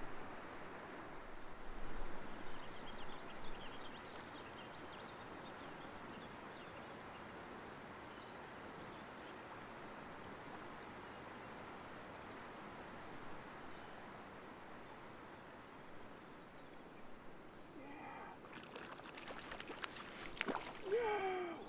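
Steady rush of a river flowing, with faint bird chirps; near the end a few louder, pitched animal calls with bending pitch and some sharp clicks.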